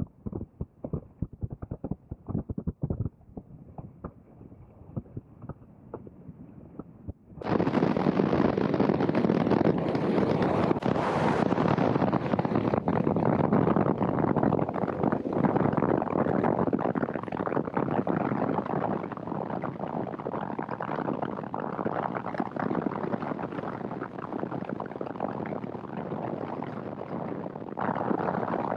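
Wind buffeting the microphone on a boat running at high speed, mixed with engine and water noise. For the first seven seconds or so it is choppy and muffled, then it jumps suddenly to a much louder, steady rush.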